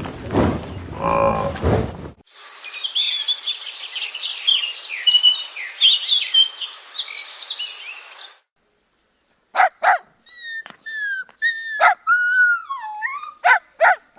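A cow mooing, then a cut to a dense chorus of many small birds chirping for about six seconds, then, after a short silence, a few separate bird calls that slide down in pitch, mixed with sharp clicks.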